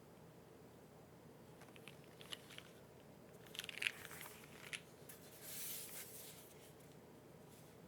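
A few scattered keystrokes on a mechanical keyboard with Cherry MX Black linear switches on an aluminium plate, GMK keycaps and no foam: short clusters of sharp clacks with pauses between, and a brief soft rustle a little past the middle.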